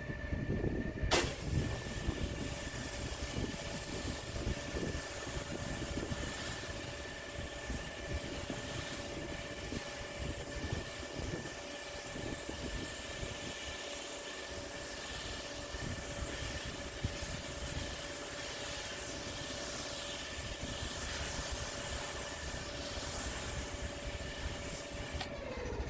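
Pressure washer running with a steady engine note; about a second in the spray gun is triggered and a steady hiss of high-pressure water sprays across the patio, stopping just before the end. The surface is being wetted down before a chemical treatment goes on.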